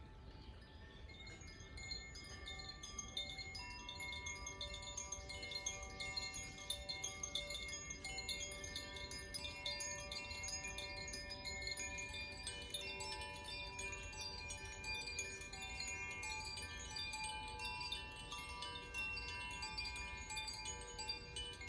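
Koshi and Zaphir chimes of the fire and air elements being played, many overlapping bright ringing tones that thicken and grow louder about two seconds in.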